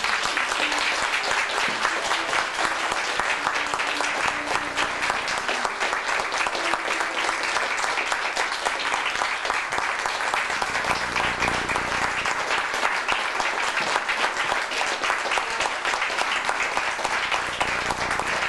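Audience applauding: many people clapping steadily, without a break.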